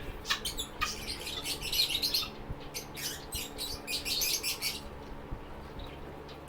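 Lovebirds chirping rapidly in two spells of quick high chirps, the second ending about five seconds in.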